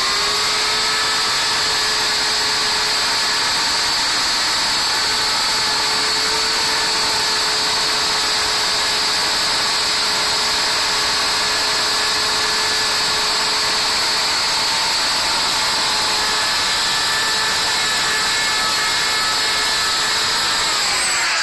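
Handheld wood router running at full speed, a loud steady motor whine, as it cuts a hinge mortise into wood along a template. It winds down with a falling pitch at the very end.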